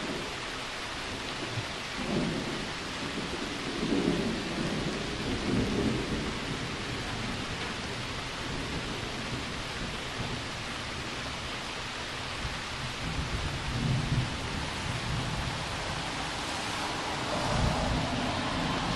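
Steady rain with rolling thunder: low rumbles swell up several times, first a few seconds in, again a little past the middle and near the end.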